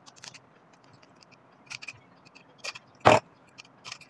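Switches and sockets being fitted into a five-hole electrical switch board: scattered light clicks and knocks, with one sharper knock about three seconds in.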